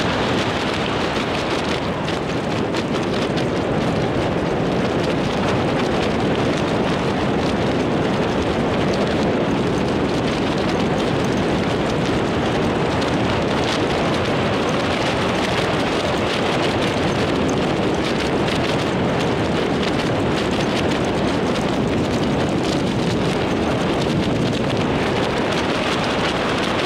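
Steady wind rushing over the camera microphone during a tandem parachute descent under an open canopy.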